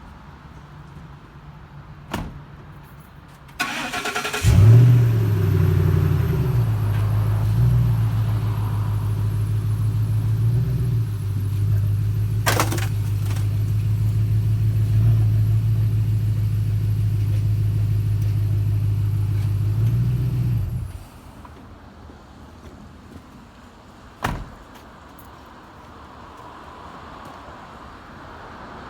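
Ford 5.4 L Triton V8 in a 2012 Econoline van cranked by the starter and catching about four seconds in. It then runs steadily with a few brief rises in pitch as the van is driven up onto car ramps, and shuts off about twenty seconds in. A click comes before the start and a sharp knock a few seconds after shutdown.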